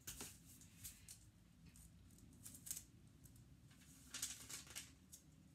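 Faint, scattered rustling and crinkling of wrapping paper as a present is folded and taped, with a denser run of rustles about four seconds in.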